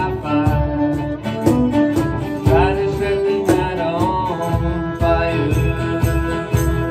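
A small acoustic band playing an instrumental passage: fiddle on the melody, with some sliding notes, over a strummed acoustic guitar and a steady beat on a cajon.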